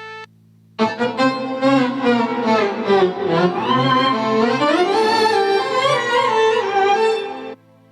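Korg Pa-series arranger keyboard playing a sampled violin voice: a solo melody with slides between notes over a steady low drone. It starts about a second in and stops shortly before the end.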